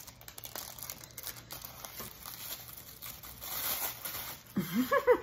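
Packaging crinkling and rustling in the hands, with tearing, as a mail-order package is handled and opened.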